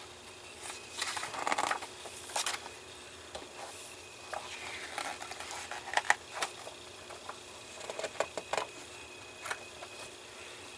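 Magazine pages being turned and handled: short, scattered paper rustles with a few light taps.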